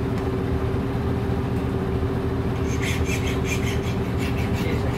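A steady machine hum with a constant low drone. From a little past halfway, a quick, even run of light clicks.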